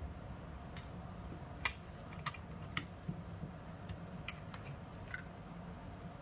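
A series of small, irregular clicks and taps from hands handling mini PC hardware, the loudest sharp click about one and a half seconds in, over a steady low hum.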